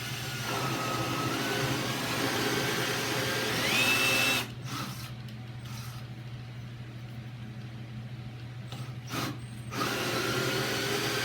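Electric drill turning a steel-cutting hole saw through a wooden door: the motor whines under load, rising in pitch near four seconds and then stopping, with a short burst near nine seconds before drilling resumes about ten seconds in. The fine-toothed saw is made for steel and cuts wood slowly as its teeth load up with dust.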